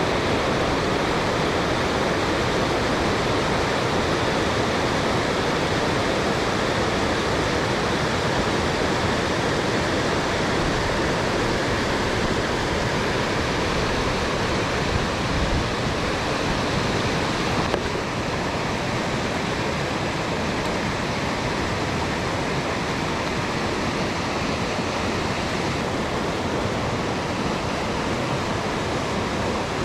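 Steady rush of flowing river water; it drops a little in level about 18 seconds in.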